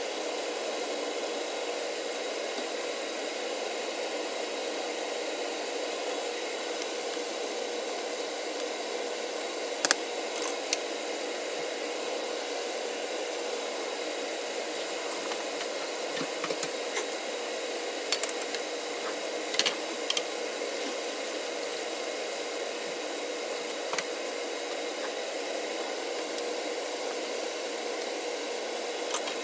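Spicy webfoot octopus and pork belly stir-fry sizzling steadily in a nonstick pan, over a steady hum. A few sharp clicks of a wooden spoon against the pan are heard in the second half.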